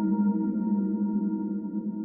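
Cinematic transition sound effect: a sustained, ringing electronic drone of several steady tones, slowly fading out.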